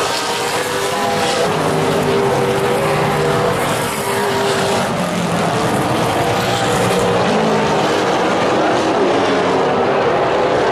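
Super late model stock cars' V8 engines running hard around a short oval track, with several cars close together. The engine pitch rises and falls as they pass and go through the turns.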